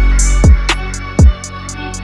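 Background music with a heavy, deep bass-drum beat and hi-hat ticks.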